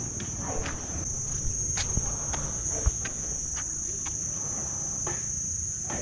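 Steady, high-pitched insect chorus, a constant drone, with a few sharp knocks and clicks scattered through it, the loudest about three seconds in.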